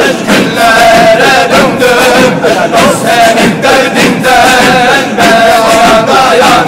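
A circle of men chanting a Sufi halka dhikr (zikir) together, unaccompanied, with held, wavering sung notes over a steady rhythmic pulse.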